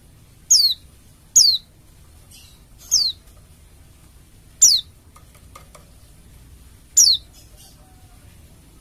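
Pleci dakun bali (a white-eye) calling: five sharp, high, downslurred notes, each falling quickly in pitch, spaced irregularly over a few seconds, with faint softer notes between.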